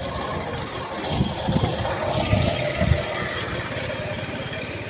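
A motor vehicle's engine running close by, with irregular low pulses, a little louder from about a second in.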